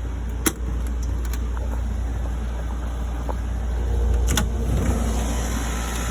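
Oil burner of a System 2000 oil-fired boiler running with its burner cover off: a steady low hum and roar of the burner, loud the way an ordinary oil burner is. Two sharp knocks are heard, about half a second in and again after four seconds.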